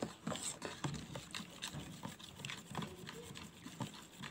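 Metal spoon stirring a liquid ice candy mixture in a plastic container, knocking and scraping against the sides in irregular light taps about twice a second.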